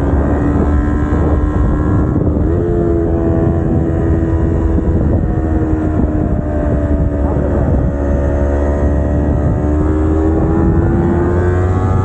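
Kawasaki Ninja 250R's parallel-twin engine pulling along a twisty road, its note stepping up in pitch about two and a half seconds in, easing off, then climbing again near the end. Steady wind rumble on the microphone underneath.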